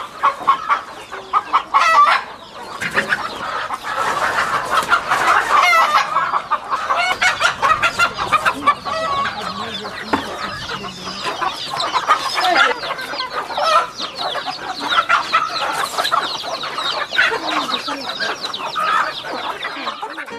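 A flock of domestic chickens clucking, many birds calling over one another.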